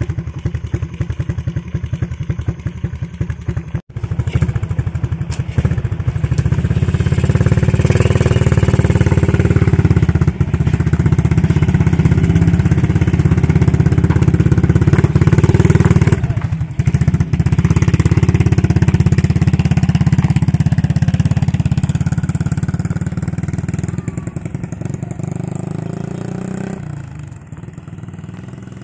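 Motorcycle with an aftermarket Daeng power pipe exhaust in a sound test: idling with a rapid, even exhaust pulse, then revved up about six seconds in and held at high revs for some twenty seconds, with a brief dip in the middle, before easing back to idle near the end.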